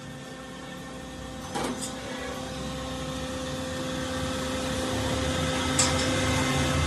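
A steady machine hum that grows gradually louder, with a short sharp click about one and a half seconds in and another near the end.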